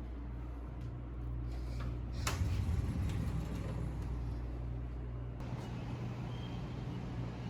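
Steady low rumble of a running engine or motor, with a sharp click about two seconds in.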